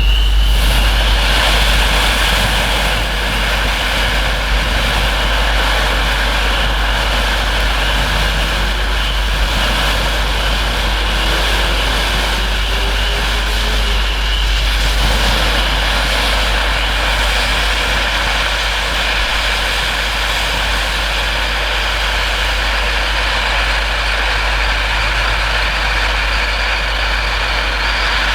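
A 500-gram firework fountain burning with a loud, steady hiss.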